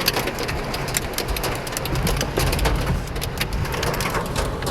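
Heavy thunderstorm rain hitting the car, a dense hiss dotted with many sharp drop impacts, over a steady low rumble.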